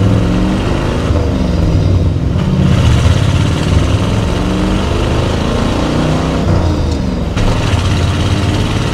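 A 1977 Ford F-150's 351 cubic-inch V8 through its dual exhaust accelerating through the gears of its 4-speed manual: the engine note climbs, drops back at a gear change about two and a half seconds in, climbs again and drops at a second change near the end.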